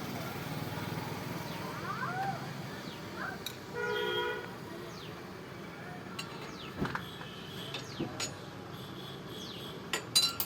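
A steady low background hum, with a short horn-like honk about four seconds in, scattered chirps, and a few sharp metallic clicks near the end.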